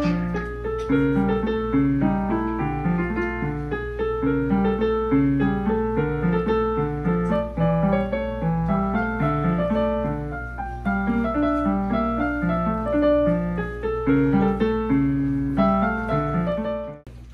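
Yamaha portable electronic keyboard played with a piano sound, a repeating left-hand accompaniment under a right-hand melody, which breaks off abruptly near the end.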